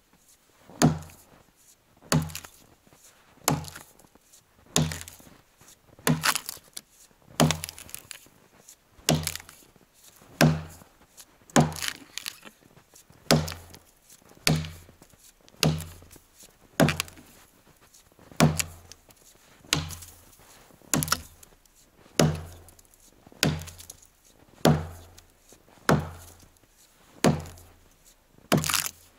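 Hand-forged Toporsib "Burunduk" axe on a 75 cm handle chopping into the base of a dry standing tree trunk to fell it. The axe bites the wood in a steady rhythm of about three strokes every four seconds, each a sharp chop with a short thud.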